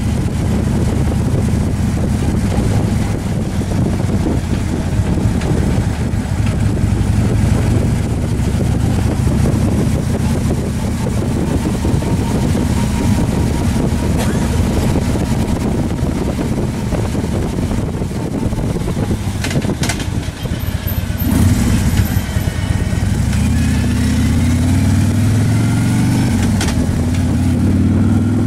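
Motorcycle engine running at road speed, with wind rushing over the microphone. About three-quarters of the way through the engine eases briefly, then its pitch climbs steadily as the bike accelerates.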